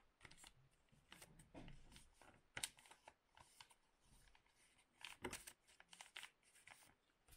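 Faint rustling and crinkling of paper letters and envelopes being handled, in irregular short rustles and clicks, two a little louder about two and a half and five seconds in.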